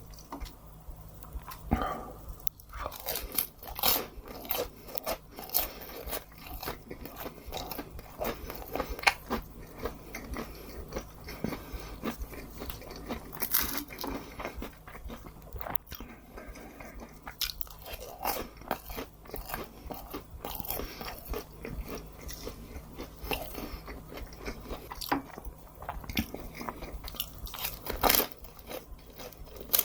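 Close-miked eating: repeated crunchy bites and chewing, with many irregular crisp crackles.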